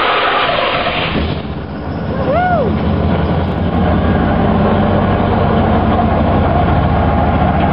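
Chevrolet Camaro race car's engine just after starting: it revs loudly for about a second, then settles into a steady low idle. About two seconds in, a short whistle-like tone rises and falls once.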